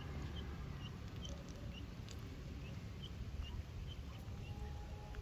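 Steady low rumble on the microphone, with a faint high chirp repeating about twice a second.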